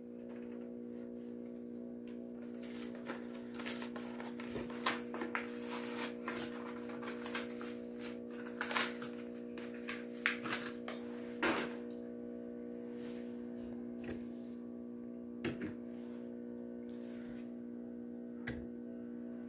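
Steady electric hum of a small motorized display turntable. Over it come scattered plastic clicks and crackles, most through the middle, as a Hot Wheels blister pack is opened. Near the end there are a couple of single clicks as the loose die-cast truck is set down.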